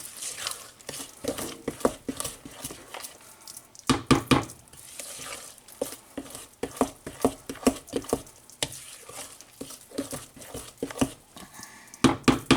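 Cornbread muffin batter being stirred by hand in a bowl, the utensil scraping and knocking against the bowl in a steady run of strokes. The strokes come faster and louder about four seconds in and again near the end, at about four a second.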